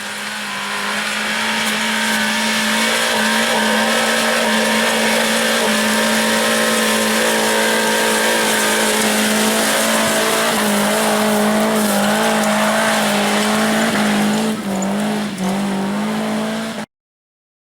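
An off-road 4x4's engine held at high revs, flat out with the pedal to the floor for a climb up a loose-stone firebreak, its pitch nearly steady with small steps. It cuts off abruptly near the end.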